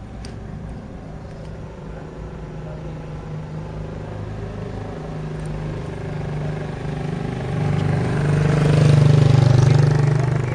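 A motor vehicle's engine running steadily and growing louder as it comes near, loudest close by about eight seconds in, then easing off as it passes.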